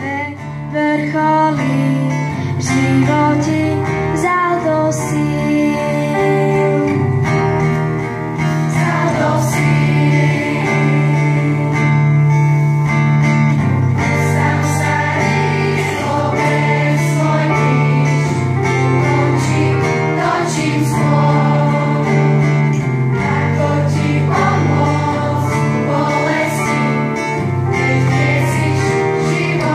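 Mixed church choir of children and adults singing together in Slovak, over sustained low notes.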